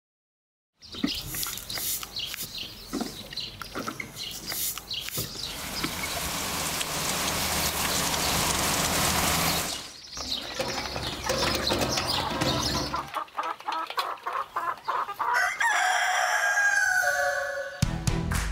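Domestic chickens clucking and crowing, with wing flapping and clatter around them. Near the end comes a run of high animal calls that rise and fall in pitch.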